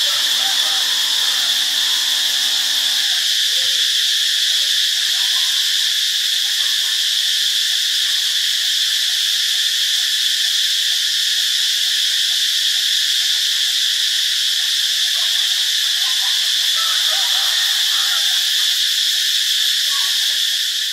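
Cicadas singing: a loud, steady, unbroken high-pitched buzz.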